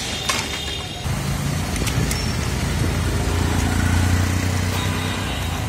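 Street traffic noise with a motor vehicle's engine humming steadily, growing louder in the middle and easing off again; a few sharp clicks in the first second.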